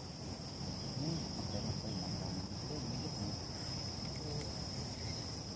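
Insects chirring steadily in the surrounding vegetation: a continuous high-pitched drone held at two constant pitches, unchanging throughout.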